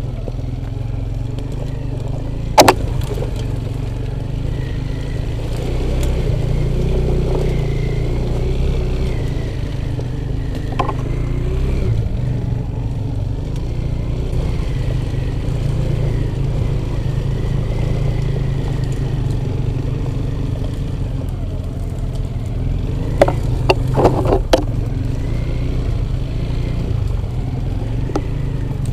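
Off-road motorcycle engine running steadily while under way. There is a sharp knock about two and a half seconds in, and a quick run of knocks near the end.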